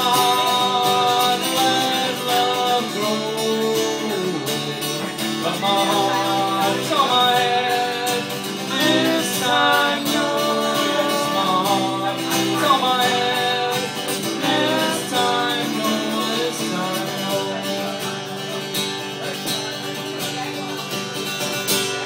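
Live music: a man singing over an acoustic guitar.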